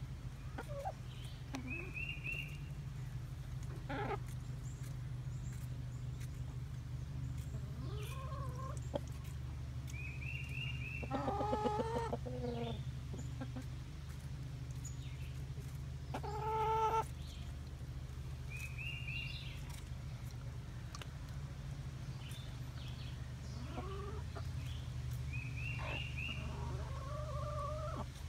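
Chickens clucking as they feed, with short high calls every several seconds and two louder, longer calls about eleven and sixteen seconds in. A steady low hum runs underneath.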